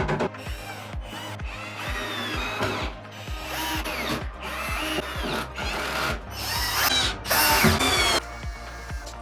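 Power drill running in about eight short bursts of a second or so each, its whine rising and falling within each burst.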